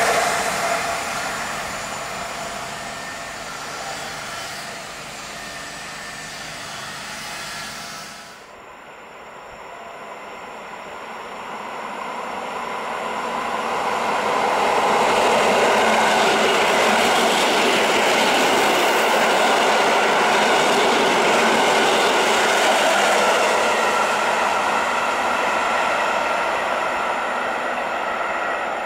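A Koleje Śląskie EN75 (Stadler Flirt) electric multiple unit passing and fading away. About eight seconds in, the sound cuts to two coupled EN57FPS electric multiple units. They grow louder as they approach, are loudest while passing, and fade a little near the end.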